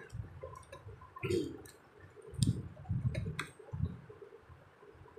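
Hands handling a plastic battery electric toothbrush, with a few sharp plastic clicks among duller knocks as its parts are twisted and fitted together.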